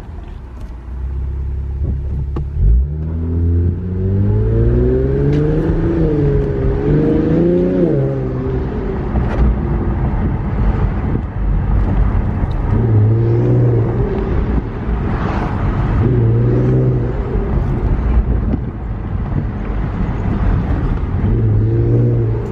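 Infiniti Q50 fitted with AMS cold air intakes, its engine rising and falling in pitch as it accelerates for several seconds, then swelling three more times in shorter pulls over a steady low rumble.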